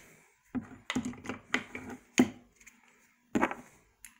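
Heritage Rough Rider single-action .22 revolver being handled as its cylinder is fitted back into the frame: a string of sharp metal clicks and clacks, the loudest a little past halfway and a last couple near the end.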